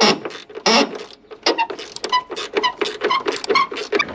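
Hand tools working on metal fittings: a quick, uneven run of sharp clicks and clinks, some with a short metallic ring, with two heavier knocks at the start.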